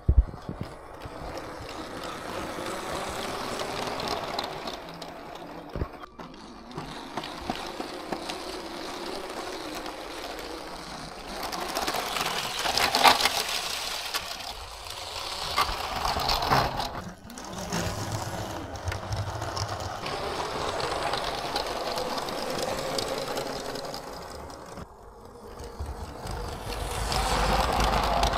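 Lego train's electric motor whirring as the train runs along plastic track, with quick clicks from the wheels and track, getting louder and softer as it goes.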